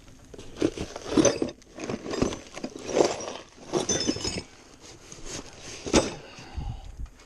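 Steel parts and hardware clanking and clinking as they are handled: a run of irregular metallic knocks with short ringing, and one more sharp clank about six seconds in.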